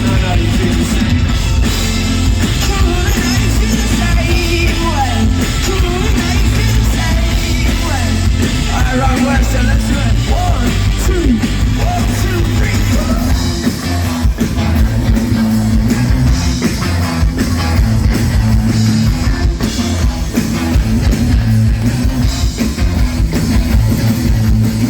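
Loud live rock music from a band on stage, with electric guitar, bass and drums.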